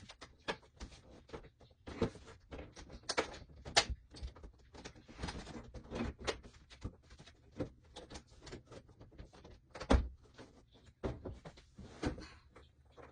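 Irregular knocks and clunks of carpentry work, with scraping between them. The loudest knocks come about four seconds in and again near ten seconds in.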